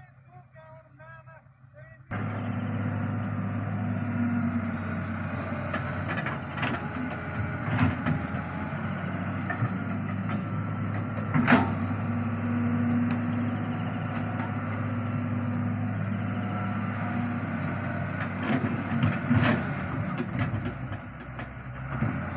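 Diesel engine of a Solar 130W wheeled excavator running steadily under load while it digs soil and swings its bucket. Sharp clanks from the bucket and boom come now and then, the loudest about midway.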